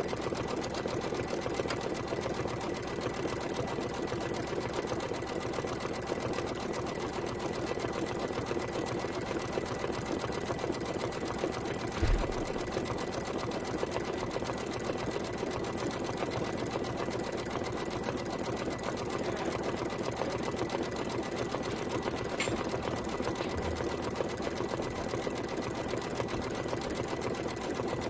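Embroidery machine stitching out a satin-stitch border around an appliqué, the needle running at a steady fast pace, with a single thump about twelve seconds in.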